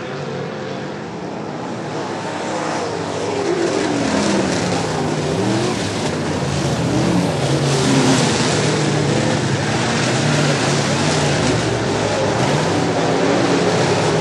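Several dirt-track modified race cars' engines racing around the track, their pitch rising and falling as the cars go through the turns. The sound gets louder about three seconds in as the cars come closer.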